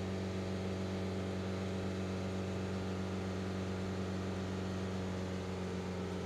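Car engine held at a steady raised speed, around 3,000 rpm, running evenly with no change in pitch, as part of a post-catalytic-converter sensor check.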